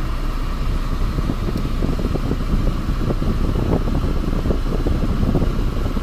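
Steady rush of air from a 2007 Honda Accord's dash vents: the A/C blower fan running with the engine running, just after a refrigerant recharge.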